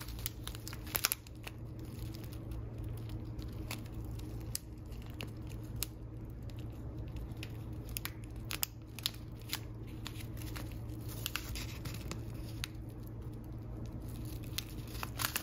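Clear plastic tea sachet of loose-leaf tea crinkling as it is turned in the fingers, giving irregular soft crackles and clicks over a steady low hum.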